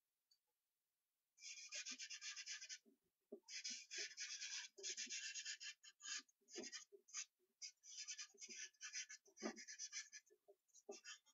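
White chalk being stroked over paper on an easel in quick scratchy runs, starting about a second and a half in, with short pauses between runs. Two soft knocks land among the strokes, the louder one near the end.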